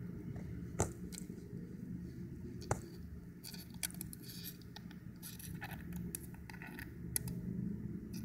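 An Ecuadorian land hermit crab's shell and legs clicking and scraping against an empty shell as it works a shell change: a few sharp clicks and short bouts of light scratching, over a steady low hum.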